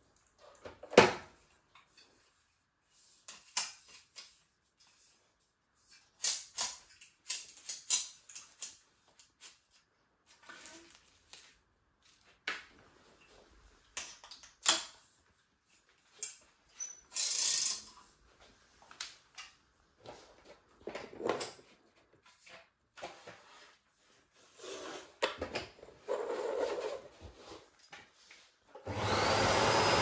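Plastic clicks, knocks and scrapes as a Bosch BGS21X320 bagless canister vacuum cleaner is put together, its hose, telescopic wand and floor nozzle handled and fitted. The sharpest knock comes about a second in. About a second before the end the vacuum's motor switches on and runs with a steady loud whoosh.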